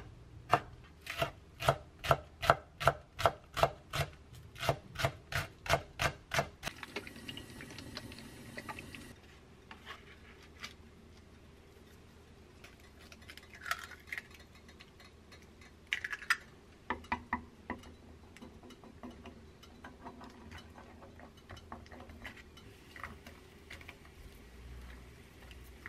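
Chef's knife chopping vegetables and sausage on a wooden cutting board, a quick, even run of about two or three strokes a second for the first six seconds or so. Then quieter, scattered taps and clatter of ingredients going into a frying pan.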